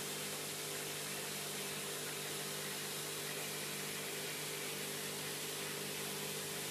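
Pond pump running: a steady hum over an even hiss, unchanging throughout.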